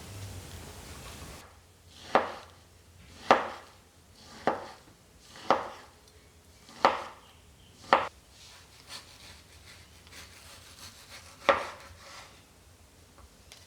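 Knife cutting food on a cutting board: six slow strokes about a second apart, each ending in a sharp knock on the board, and one more after a pause of a few seconds.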